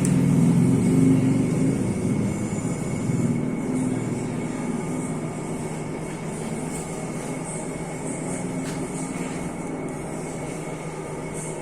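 C6240 engine lathe running under power: a steady mechanical hum from the motor and headstock gearing. It is louder for the first few seconds, then settles to an even, lower drone.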